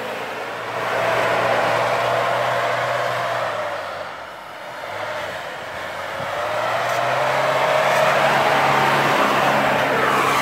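Land Rover Discovery 300Tdi's 2.5-litre four-cylinder turbodiesel revving hard as the truck pushes through deep snow. The engine note sags and quietens about four seconds in, then climbs and holds high again.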